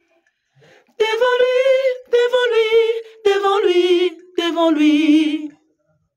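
A single voice singing unaccompanied: four held sung phrases, each lower in pitch than the one before, the last with a wide vibrato.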